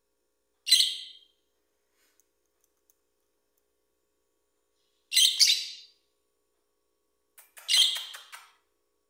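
Small pet parrots, a cockatiel and a budgerigar, chirping in three short bursts: a brief high chirp about a second in, then two longer chattering bursts around five and eight seconds in.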